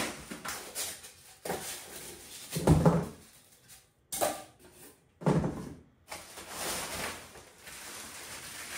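Packing being pulled out of a cardboard box: styrofoam inserts scraping free and being tossed aside, with two louder thuds about three and five seconds in. Plastic wrap rustles on a dumbbell handle over the last few seconds.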